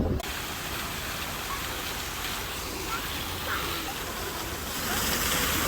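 Steady rushing noise, with no clear pitch, growing louder about five seconds in, and a few faint short high chirps over it.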